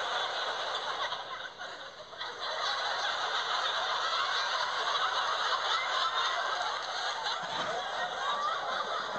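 An audience laughing: many voices at once, dipping briefly about two seconds in and then swelling again.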